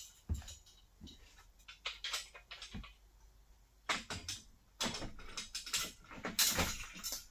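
Irregular clicks, knocks and rattles as parts of a Harbor Freight drywall panel hoist are handled and fitted together during assembly, with a longer scraping rattle about six and a half seconds in.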